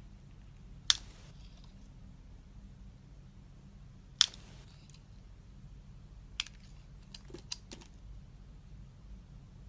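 Dry soap being cut into cubes: two sharp, crisp cuts, about a second in and about four seconds in, each followed by a short crumbly patter. Then a few lighter clicks and ticks come near the end.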